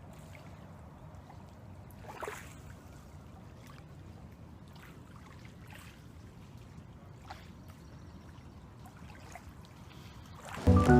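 Faint outdoor ambience: a low steady rumble with a few brief, faint sounds now and then. Background music comes in loudly just before the end.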